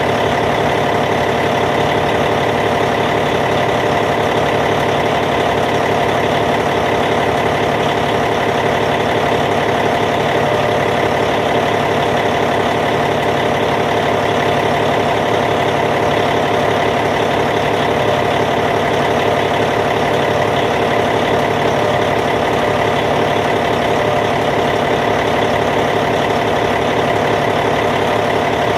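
Caterpillar C15 inline-six diesel engine of a D8T bulldozer idling steadily, with an even, unchanging note.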